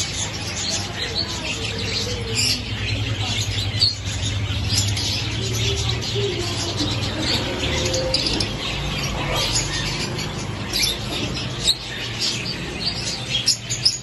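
Many caged small parrots, lovebirds and cockatiels among them, chirping and squawking together in a dense, continuous chatter, over a low steady hum.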